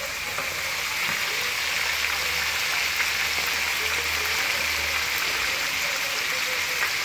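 Fish fillets frying in hot oil with onion and garlic in a skillet: a steady sizzle with fine crackling.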